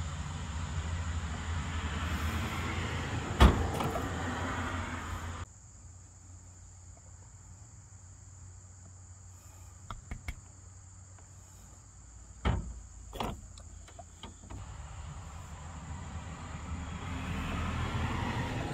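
Motor oil pouring from a plastic jug into a funnel. The pour noise builds, drops away abruptly about five seconds in, and builds again near the end, with a few sharp knocks. Insects chirr steadily in the background.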